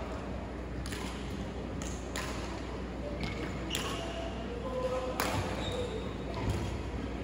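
Badminton hall sounds between points: a few sharp taps and short squeaks of shoes on the wooden court, with faint voices in the large hall.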